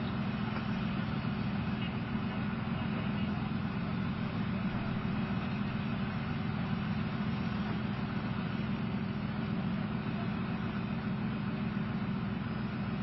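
Diesel engines of tracked armoured personnel carriers of the M113 type idling steadily, a constant low hum with no revving.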